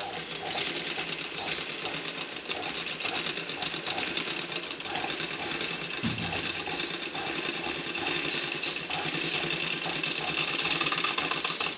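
Friend picot-edging sewing machine running steadily, a rapid, even mechanical clatter of needle strokes as it stitches a picot edge along the fabric.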